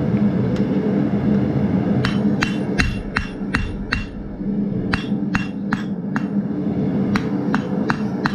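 Blacksmith's hand hammer striking a glowing steel bar on the anvil face, rounding up a drawn-out tip: quick ringing blows about three a second, starting about two seconds in, with a short pause near the middle. A steady low drone runs underneath.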